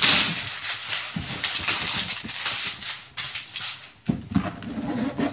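Clear plastic shrink wrap crinkling and tearing as it is pulled off a cardboard box, loudest right at the start, in irregular crackly bursts.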